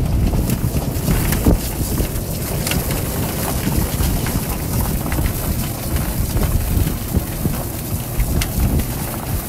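Chicken plucker spinning freshly scalded chickens while a water hose sprays into it: a steady, watery rushing with frequent irregular knocks.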